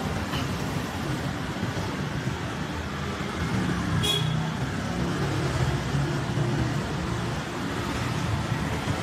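Steady low rumble of passing road traffic, with one short, sharp high click about four seconds in.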